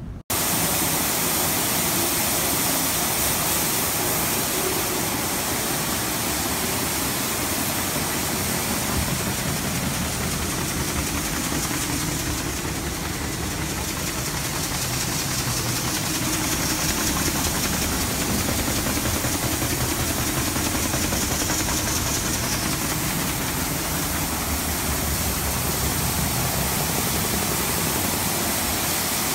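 Grain-handling machinery running steadily: a belt conveyor carrying grain, with its drive pulleys and belts, makes a loud, even mechanical noise. The noise starts abruptly just after the beginning.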